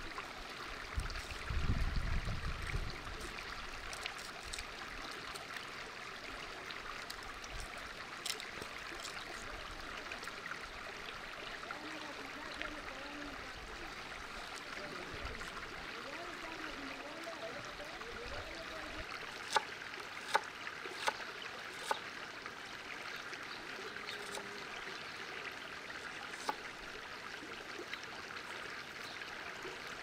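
Steady rush of a flowing stream, with a low rumble about two seconds in and a handful of short sharp clicks around twenty seconds in and again a little later.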